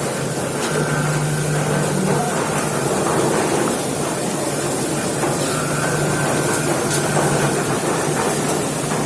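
Onion sorting machine running steadily, a continuous mechanical rattle and rush with a low hum that swells in and out every few seconds.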